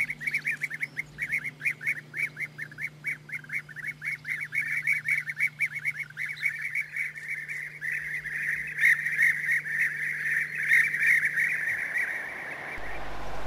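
European bee-eaters calling: short rolling calls repeated several times a second, thickening into a denser chorus about two-thirds of the way through and fading out near the end.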